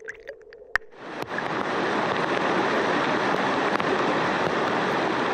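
Fast-flowing creek water rushing steadily, coming in about a second in after a few faint ticks and one sharp click.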